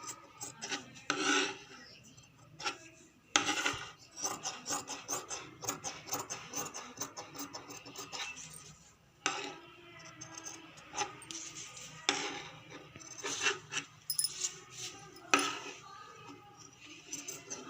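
Scissors cutting through fabric: a run of quick rasping snips, with a few louder knocks now and then.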